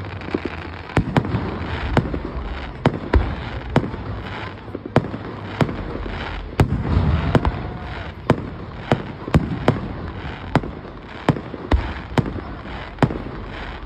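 Aerial fireworks bursting in a steady run of sharp bangs, roughly one every half second, over a low rumble of booms.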